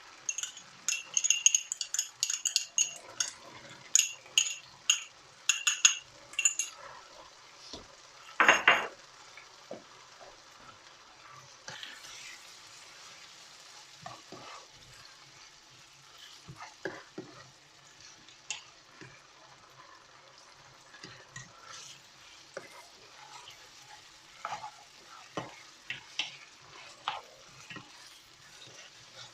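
A curry frying in a pan, with the tomato puree just stirred in. A utensil stirs and clinks against the pan over a steady sizzle. The clinking is busiest for the first several seconds, with one louder clatter at about eight and a half seconds, then mostly sizzling with occasional light scrapes.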